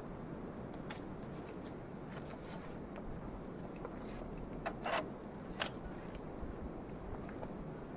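A few light clicks and knocks, the loudest pair about five seconds in, over a steady low background rumble.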